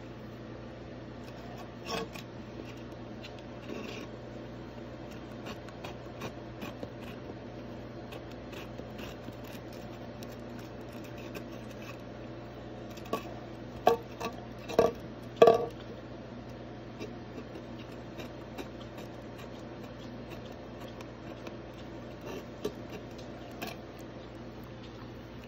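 A Shiba Inu licking the inside of a thin plastic cup, its tongue lapping with small clicks while the cup rubs and scrapes on the floor. A few louder knocks of the cup come once about two seconds in and several times in quick succession around the middle. A steady low hum runs underneath.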